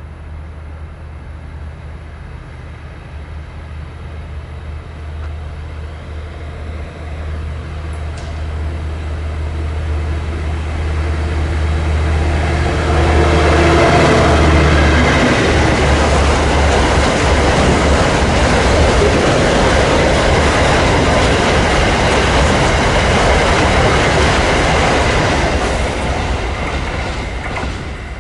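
SCT CSR-class diesel-electric locomotive approaching with a deep engine drone that grows steadily louder and passes about halfway through. A long string of loaded freight wagons follows, their wheels running over the rails with a steady noise that fades near the end.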